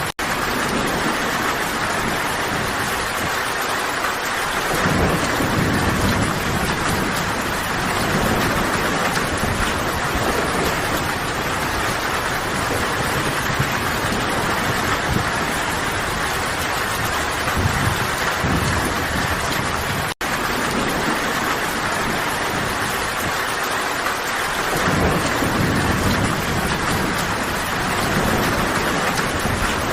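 Steady heavy rain, a dense even hiss, with deep low rumbles swelling up every several seconds. The sound cuts out for an instant right at the start and again about twenty seconds in.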